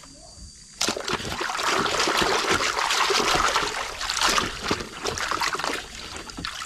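Muddy water splashing and sloshing in a basin as a hand churns a plastic toy truck through it to wash it, starting suddenly about a second in.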